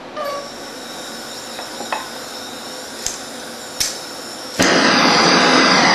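Small butane torch being lit: gas hissing from the opened valve with a few sharp clicks of a flint spark striker, then about four and a half seconds in the flame catches with a sudden, much louder, steady roar. The flame is burning too hot and is turned down shortly after.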